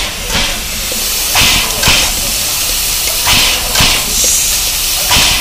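Tkt48 steam tank locomotive working slowly: repeated bursts of hissing steam with low thumps, several of them paired about half a second apart, over a steady hiss of escaping steam.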